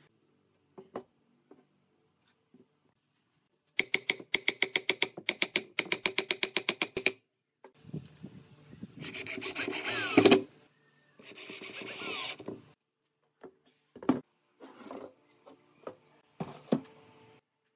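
Wood being worked by hand: a run of quick rasping strokes, about eight a second, then a couple of longer scraping passes, then a few wooden knocks as the round poles are handled.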